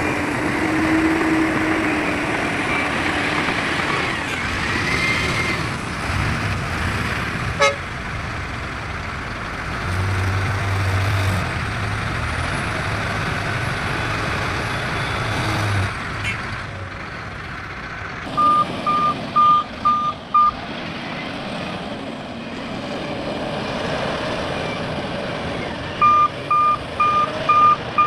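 Heavy machinery engines running, then a reversing alarm on a heavy vehicle beeping at about two and a half beeps a second, in a short run about 18 seconds in and again near the end.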